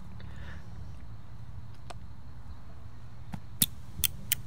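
A wooden baton knocking on the spine of a knife driven into a thin stick, splitting the wood: a few sharp knocks, one about two seconds in and then several closer together near the end, over a steady low background hum.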